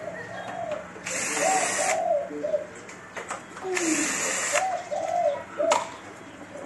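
Cordless drill/driver run twice in short bursts of about a second each, backing screws out of a copier's sheet-metal panel, with a sharp click near the end. Pigeons cooing repeatedly in the background.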